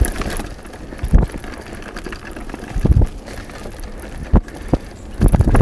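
Mountain bike riding fast down a dirt singletrack: a steady rush of wind on the microphone and tyres on dirt, with sharp knocks and rattles of the bike over bumps, about a second in, around three seconds and in a cluster near the end.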